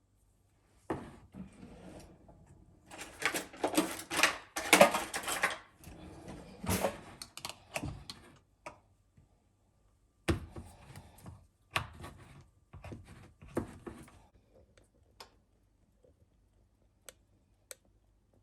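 Objects being handled: a run of irregular knocks, clicks and rustling, busiest a few seconds in and again past the middle, then a few single ticks.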